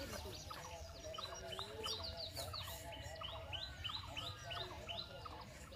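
Birds chirping: many short, quick calls repeating several times a second, over a steady low background rumble.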